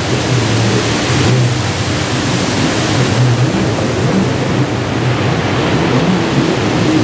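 Ocean surf washing onto a beach, a steady loud rush, with an uneven low rumble underneath.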